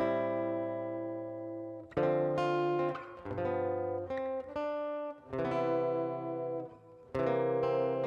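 Background music: strummed acoustic guitar chords, a new chord struck about every two seconds and left to ring.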